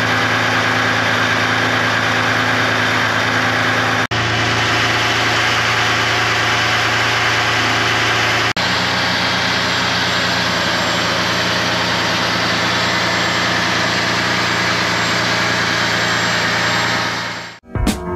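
Ferrari 456GT's 5.5-litre V12 idling steadily, heard close up in the open engine bay. The sound breaks off for an instant twice.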